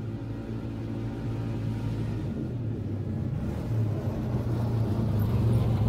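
A 2007 Polaris Ranger 6x6 side-by-side's engine running as it drives closer, growing steadily louder.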